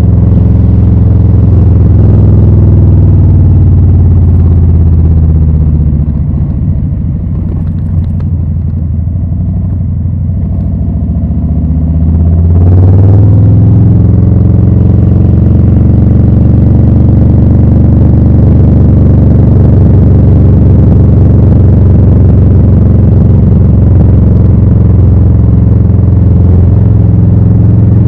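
2020 Harley-Davidson Low Rider S's Milwaukee-Eight 114 V-twin running loud through Rinehart slip-on exhausts while riding. About five seconds in the throttle comes off and the revs sag and drop quieter for several seconds; a little before halfway the revs climb sharply as it accelerates again, then it runs loud and steady.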